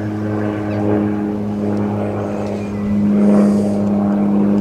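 An engine running steadily, a low pitched drone that swells a little about three seconds in.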